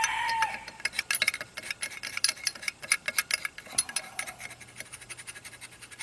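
Small screwdriver scraping and ticking against the inside of a metal carburetor float bowl, a rapid, irregular run of small metallic scrapes and clicks as caked rust is worked loose. A rooster's crow trails off about half a second in.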